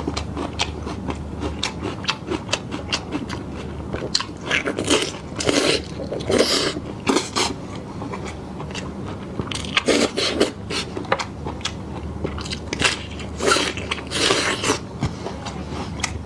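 Close-miked eating: biting and chewing with repeated crunches and clicks, in several louder bursts of crunching.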